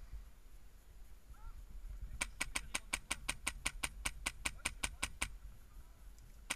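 PolarStar HPA-powered airsoft rifle firing a rapid, even string of about eighteen sharp, clicking shots, roughly six a second, starting about two seconds in and stopping about three seconds later.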